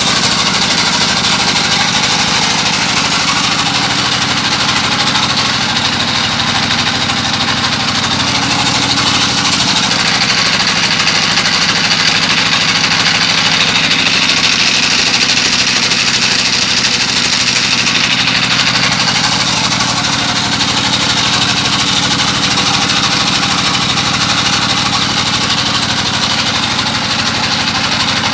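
A boat engine running steadily at constant speed.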